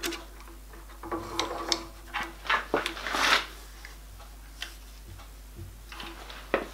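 Metal clinks and knocks from a drilling fixture and locking pliers being handled and set on a drill press table, with a short scrape about three seconds in and a few lighter taps after.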